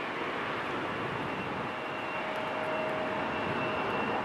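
Jet engines of a landing three-engined McDonnell Douglas DC-10-family freighter: a steady rush of engine noise with two faint steady whines, growing slightly louder in the second half.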